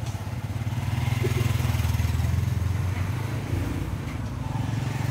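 An engine running close by: a steady low rumble that swells about a second in and eases slightly near the end.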